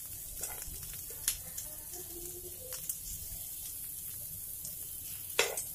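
Potato pieces sizzling as they shallow-fry in a little oil in a nonstick pan, with a steel spoon scraping and tapping against the pan now and then; the sharpest tap comes near the end.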